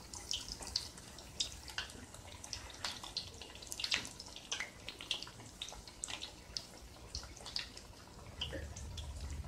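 Spinach-and-urad-dal vadas deep-frying in hot oil: a quiet sizzle with many irregular crackles and pops.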